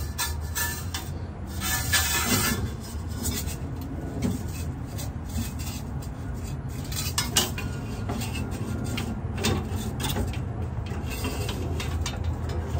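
Metal clinking, knocking and scraping as a hard fuel line is bent and worked into place against the car's frame, with scattered sharp knocks over a steady low hum.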